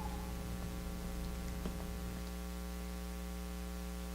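Steady electrical mains hum: a low, even buzz with a few faint clicks.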